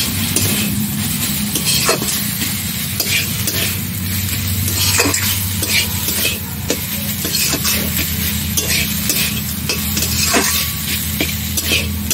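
Metal spatula stirring and scraping red amaranth greens frying in a steel wok: a steady sizzle with irregular clinks and scrapes of the spatula against the pan, over a steady low hum.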